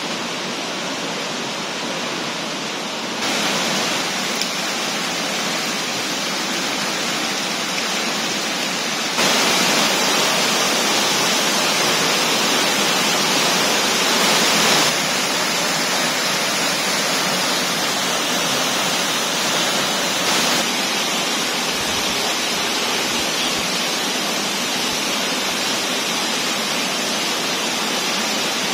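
Steady rushing roar of a tall waterfall crashing down close by. It grows louder in steps about three and nine seconds in, then eases back a little after about fifteen seconds.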